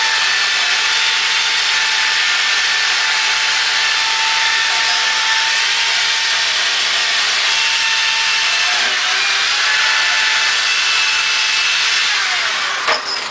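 Handheld power tool running steadily as it scours the old wrought-iron post down to rough up the surface for paint: a steady motor whine over a loud hiss. Near the end the tool slows and stops, followed by a sharp knock.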